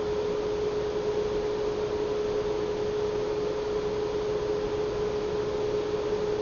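A steady hum at one unchanging pitch over a hiss of background noise.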